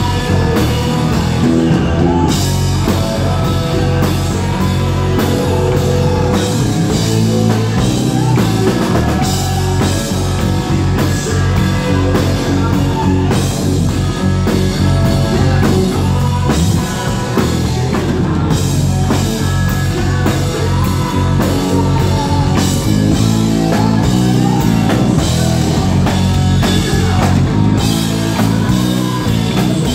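Hard rock band playing live and loud: distorted electric guitar, bass guitar and a drum kit, with a singer at the microphone.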